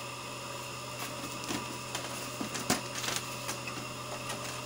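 Epson L360 inkjet printer, working again after its power supply was replaced, making a run of light mechanical clicks and knocks over a steady hum.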